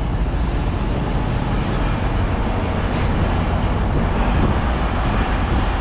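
Steady low rumble of vehicle engines idling, with no distinct strokes or changes.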